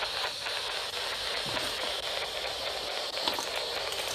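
Steady hiss of electronic static, with a few faint clicks.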